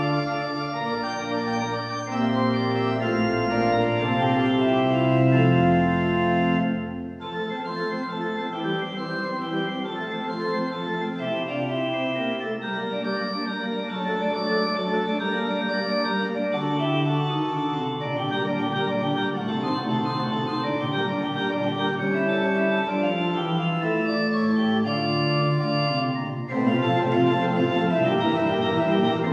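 Church organ playing slow, sustained chords over a deep bass line; about seven seconds in the bass drops out and the sound thins, and it grows fuller again near the end.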